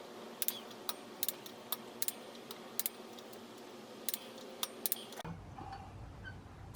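Torque wrench tightening bolts on a motorcycle wheel hub to about 11 newton metres: a string of sharp, irregularly spaced metal clicks, with a pause after about five seconds and two more clicks near the end.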